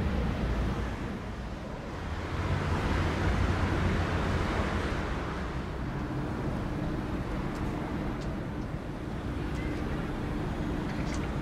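Steady outdoor ambience of distant traffic and wind, with a low rumble in the first seconds and a faint steady hum from about halfway through.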